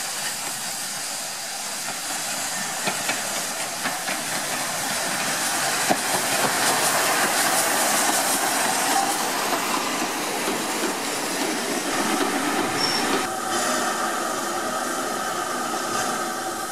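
LNER B12 4-6-0 steam locomotive No. 8572 running in past, steam hissing and wheels clicking over the rail joints, loudest about halfway through. Near the end it settles into a steadier hiss with a few held tones.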